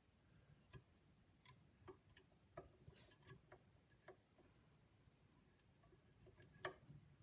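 Faint, irregular metallic clicks and ticks from a curtain pick and tension tool working the levers inside a 5-lever Eurospec lock, with one louder click near the end.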